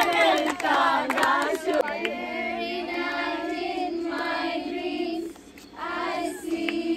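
Several voices talking over each other, then a group of women and girls singing a chant together in long held notes, breaking off briefly about five seconds in.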